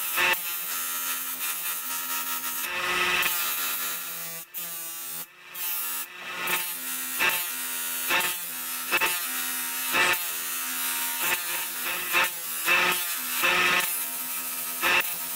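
Bench grinder motor running with a steady hum while a beryllium copper ball peen hammer head is ground on its wheel, the grinding rasp swelling with each short pass, roughly once a second.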